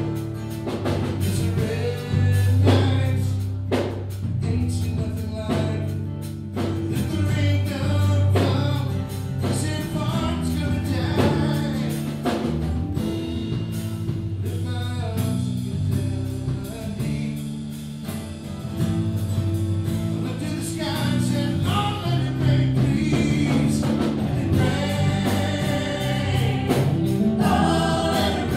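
A live band playing a song: electric and acoustic guitars, bass and drums, with lead and backing voices singing together.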